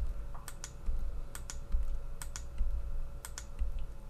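Computer mouse and keyboard clicks in close pairs, about one pair a second, as lines are selected and deleted on screen. Under them runs a faint steady hum.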